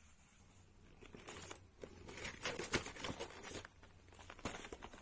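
Crinkling and rustling of plastic packaging from a charm bracelet kit being handled, with small irregular clicks, starting about a second in and briefly again near the end.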